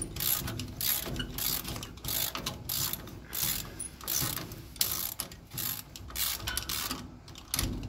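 Hand ratchet clicking in repeated short strokes, about two a second, as it loosens a bolt at the truck's rear axle and leaf-spring mount.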